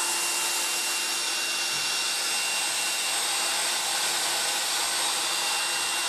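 Black & Decker SW105 Stowaway 1000 travel hairdryer running steadily with its air concentrator nozzle fitted, blowing hot air: an even rush of air with a thin, steady high whine.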